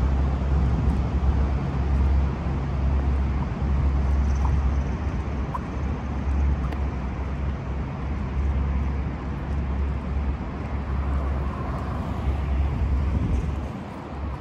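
City street ambience: a steady hum of road traffic with a low rumble, easing off a little near the end.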